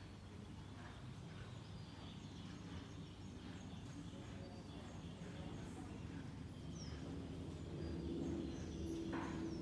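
Quiet stable ambience: a steady low rumble with faint, scattered bird chirps. A low steady hum comes in near the end, and there is a brief rustle just before the end.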